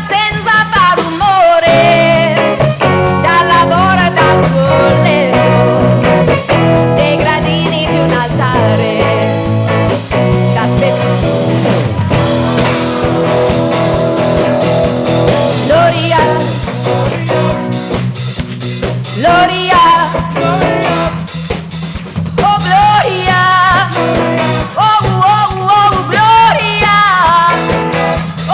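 Italian pop-rock song playing: a band with guitar, bass and a steady drum beat under a sung melody line.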